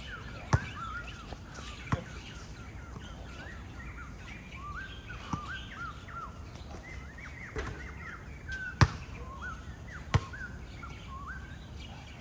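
Basketball shoes squeaking over and over on the court floor, short chirping squeals, with a basketball bouncing now and then in about half a dozen sharp smacks.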